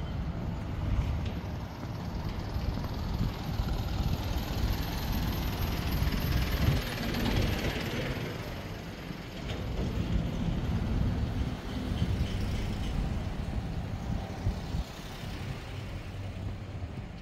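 Street traffic: a steady low rumble of road vehicles, with one vehicle's tyre and engine noise swelling as it passes about seven seconds in.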